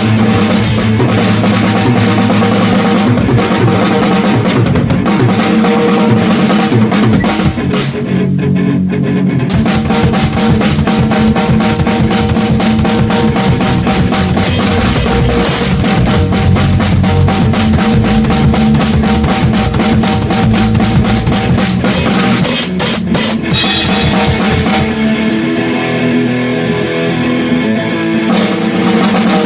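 Rock band playing, with a full drum kit and electric guitar. The cymbals and drums drop out briefly about eight seconds in, and the highs thin again near the end.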